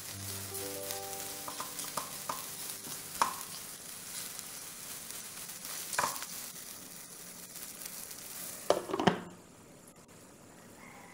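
Egg and spinach sizzling in a nonstick frying pan, with a spatula tapping and scraping against the pan a few times. Near the end a glass lid knocks onto the pan, and the sizzle turns quieter and muffled under it.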